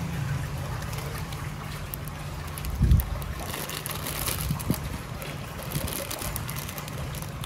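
Clear plastic bag of peanut candy crinkling as it is handled, over a steady low hum, with a low bump about three seconds in.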